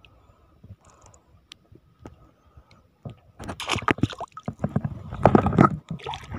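Shallow seawater splashing and sloshing in loud, irregular bursts that begin about three seconds in, after a quiet stretch with a few faint clicks.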